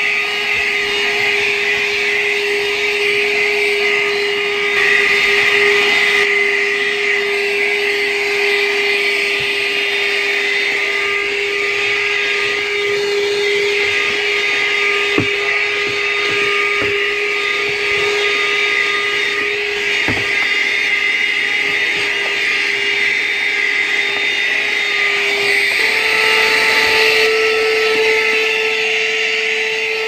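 Armor All AA12V1 12-volt handheld car vacuum running steadily: a motor whine over a hiss of airflow as the nozzle works over cloth upholstery and carpet. A few light clicks come in the middle, and the whine steps up slightly in pitch near the end.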